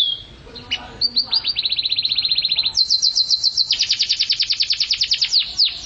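A songbird singing a long, fast, high trill of repeated notes, about a dozen a second, which jumps up in pitch a little before halfway and stops shortly before the end.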